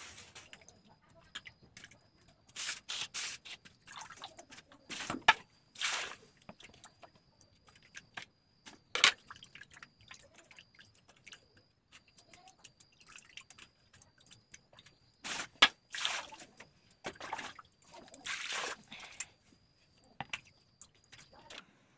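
Hands working raw rohu fish pieces in a steel bowl of water: irregular wet splashes, drips and sloshing, with a few sharp knocks about five, nine and fifteen seconds in.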